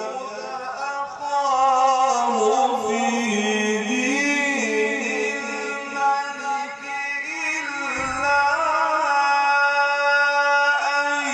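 A man's voice in melodic Quran recitation, holding long notes and winding the pitch up and down through ornamented runs.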